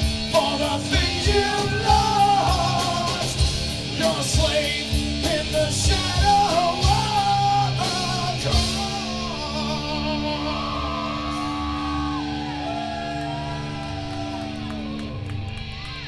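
Live rock band with a singer, drums hitting under held guitar chords; about halfway the drums stop and the final chord is held and slowly fades, ending the song.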